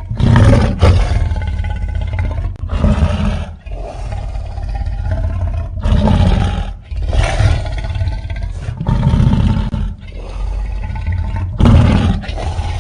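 Designed sea-monster roars for the fictional creature El Gran Maja: about six deep, rumbling roars in a row, one every two seconds or so, each starting suddenly and then trailing off.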